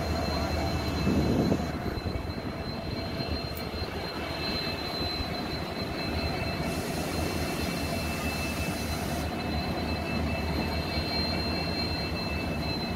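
Steady rumble of a train moving through a station, with a low hum and a thin, steady high whine over it, and a brief louder burst about a second in.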